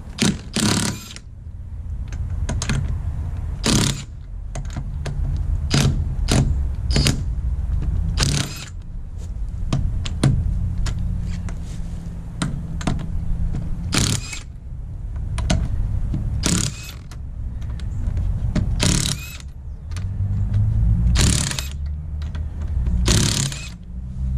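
Cordless impact wrench spinning lug nuts off a truck wheel in several runs of a few seconds each, with many sharp clicks in between.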